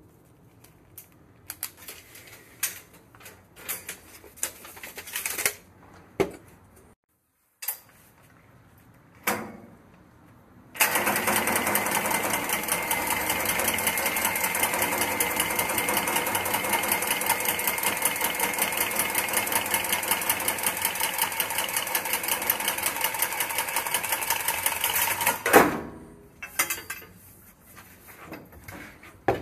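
Scattered handling clicks and knocks, then a cordless power tool cutting copper pipe to length: its motor runs steadily with a whine and a fast, even chatter for about fifteen seconds and stops with a knock.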